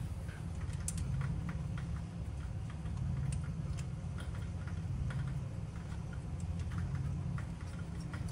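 Scattered light metallic clicks and taps of bolts being handled and threaded back into an engine by hand, at irregular intervals over a steady low hum.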